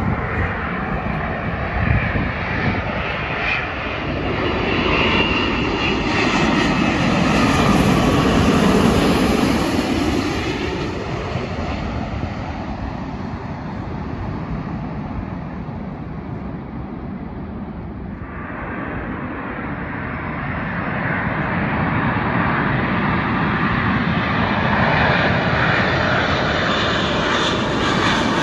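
Jet airliners passing low on their landing approach: the engine noise swells to a peak about nine seconds in and fades. After a sudden change about eighteen seconds in, a second jet's noise builds toward the end.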